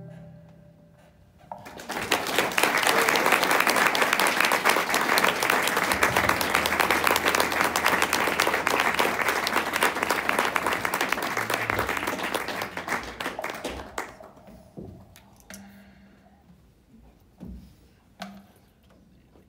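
Small audience applauding, starting a second or two in and dying away after about twelve seconds, followed by a few scattered knocks.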